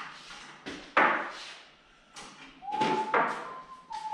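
Hand tools clattering on a garage workbench as sockets are picked out: a sharp knock about a second in, then more clinks and knocks around two to three seconds. From near three seconds a person whistles a single held note.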